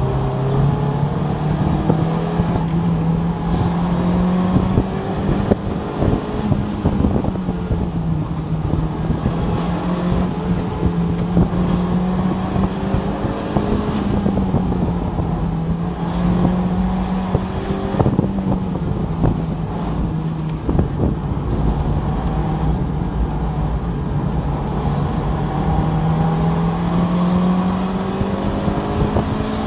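Mazda Miata's four-cylinder engine heard from inside the cabin during a hard autocross run, its note climbing under throttle and dropping off several times as the driver accelerates, lifts and brakes through the cones.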